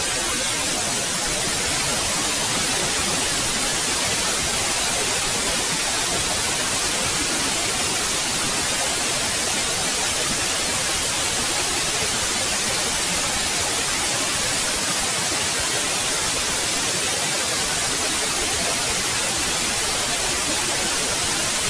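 Steady white noise: an even, unchanging hiss across all pitches, brightest in the highest.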